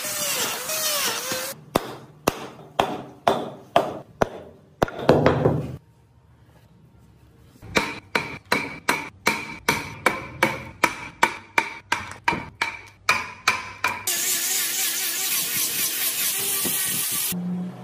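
A wood router runs briefly and stops, followed by a run of sharp knocks on wood. After a short pause come about six seconds of even hammer blows, about three a second, each with a ringing metallic note. Near the end an angle grinder fitted with a sanding disc runs steadily against the wood for about three seconds.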